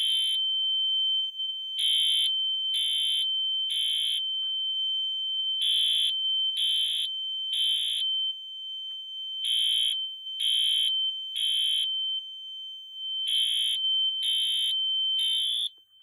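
Two fire alarm horns sounding together: a Wheelock AS ceiling horn strobe on medium volume blasts the Code-3 temporal pattern, three blasts about a second apart and then a pause, over and over. A Gentex GX-90 horn holds a continuous steady high tone underneath. The Code-3 pattern is the standard evacuation signal.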